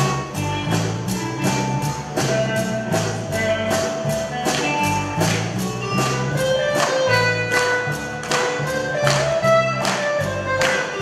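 Live country band playing an instrumental passage: acoustic guitar chords with a held lead melody line over them, and a steady percussion beat of about three strikes a second.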